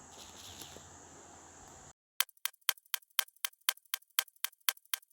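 Faint hiss with a steady high whine that cuts off abruptly about two seconds in. Then sharp, even ticking, about four ticks a second, like a fast clock or timer.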